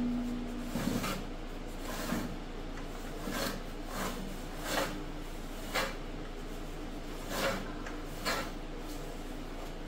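Briggs & Stratton twin-cylinder engine being turned over by hand at the flywheel screen, with a short rasping swish about once a second as it goes round. It turns freely: the engine is not seized.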